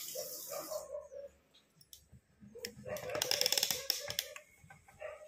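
A kitchen tap running into a steel sink, stopping within the first second, then scattered clicks and about a second of dense clattering handling noise as the phone camera is picked up and carried.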